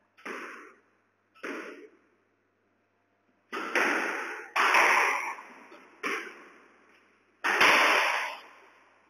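A squash ball being struck by rackets and hitting the court walls during a rally. There are about seven sharp hits, each echoing in the enclosed court, with the loudest in the middle and near the end.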